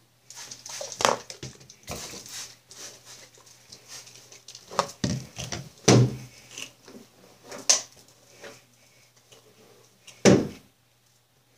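Hair being brushed and combed, with scratchy strokes and rustles, broken by irregular bumps and knocks of handling close to the microphone; the loudest knocks come about a second, six seconds and ten seconds in.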